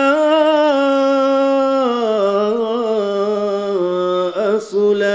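A man's voice in melodic Quran recitation (tilawat), holding long drawn-out ornamented notes. The pitch steps down about two seconds in and again near four seconds, with a brief break about four and a half seconds in before a steady held note.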